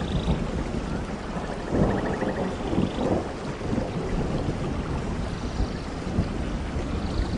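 Steady rain with low rumbling thunder, swelling about two seconds in.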